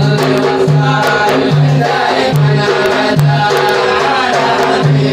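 Instrumental break in a sung Islamic nasheed: a steady percussion beat with a low note repeating about every 0.8 s, under a backing chorus.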